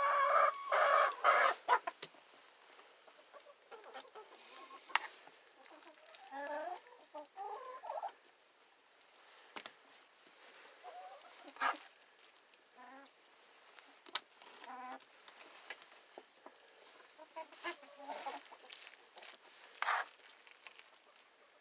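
Hens clucking as they feed, loudest in the first two seconds and then softer scattered clucks, with a few sharp ticks in between. It is the low, content clucking of a flock at ease.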